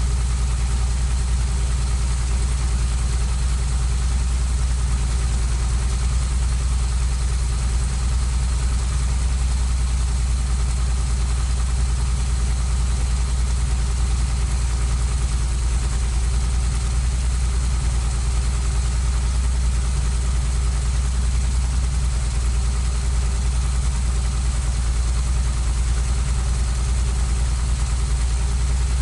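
Datsun 240Z's Nissan L-series straight-six, fitted with a crossflow head and six open intake trumpets, idling steadily. The owner suspects the spark plugs may just be fouled.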